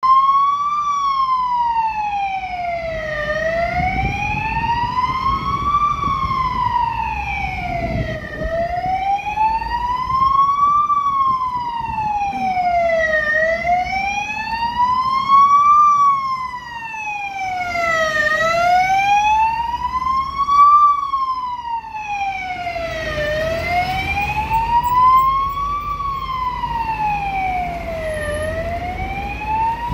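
Fire engine's two-tone-free wailing siren on an emergency run, gliding slowly up and down in pitch with one full rise and fall about every five seconds, over the truck's diesel engine running underneath.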